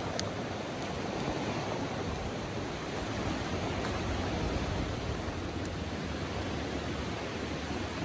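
Shallow river rushing over rocks: a steady, even rush of water. A couple of faint wood-fire crackles near the start.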